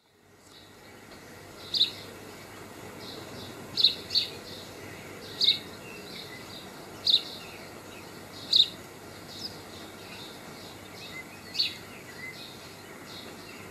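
Eurasian bullfinch giving short, high calls, one every second or two, over a faint steady background hiss.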